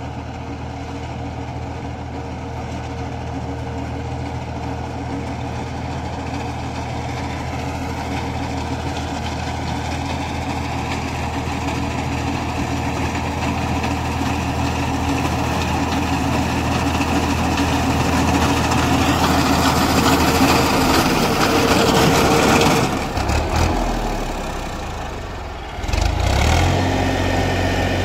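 Tractor diesel engine running steadily while powering a front-mounted reaper binder through standing wheat, growing louder as it comes closer. About three quarters of the way in the sound dips for a few seconds, then the engine is heard close up.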